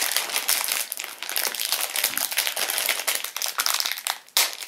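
A chocolate-bar wrapper crinkling and crackling in a fast, continuous run as it is wrestled open by hand, with a brief lull just before the end.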